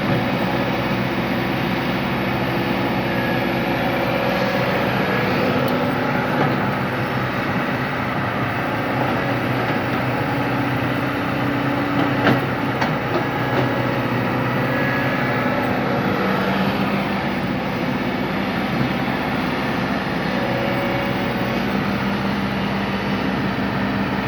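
A JCB excavator's diesel engine running steadily, its pitch shifting now and then as it works, with a few short knocks, the clearest about 12 seconds in.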